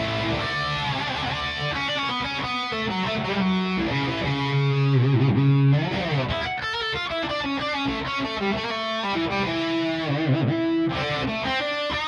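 Ibanez GRG170DX electric guitar played with an overdriven drive tone: a lead line of held notes, some bent in pitch, and quick runs.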